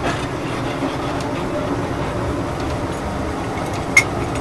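A train running with a steady rumbling rolling noise, and one sharp metallic clink about four seconds in.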